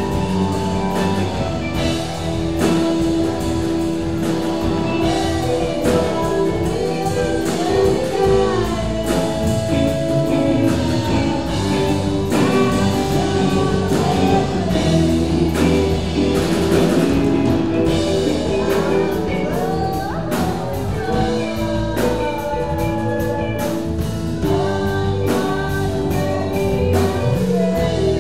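Live band playing an improvised jam: two electric guitars, electric bass, keyboard and drum kit, with a woman singing over them.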